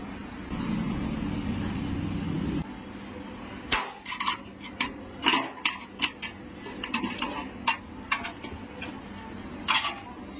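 A steady low rumble stops suddenly, then a run of sharp metallic clinks and taps, as of tools and metal parts knocking together.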